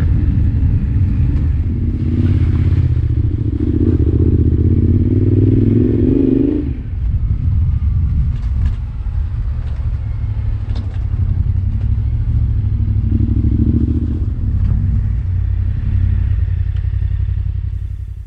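Yamaha Ténéré 700's parallel-twin engine running under way, pulling hard, then easing off about seven seconds in and carrying on at a lower note. A few light knocks are heard in the second half.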